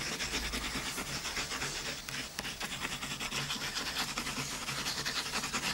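Continuous close rubbing and scratching of paper, dense with small scratchy strokes, as hands work on a paper mask. A faint low hum sits underneath.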